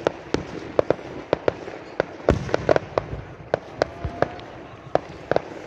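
Aerial fireworks bursting: an irregular run of sharp bangs and cracks, with a deeper, heavier boom a little past two seconds in.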